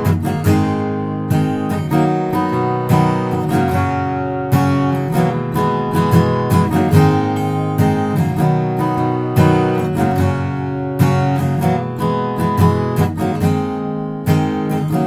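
Background music: acoustic guitar strumming and picking chords in a steady rhythm.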